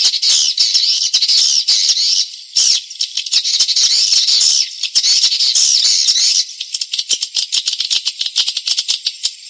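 Swiftlet lure call: a dense chorus of high, wavering twittering chirps in three long bouts, then, from about two-thirds of the way in, rapid trains of dry clicks. It is the kind of call sound played to draw swiftlets into a nesting house.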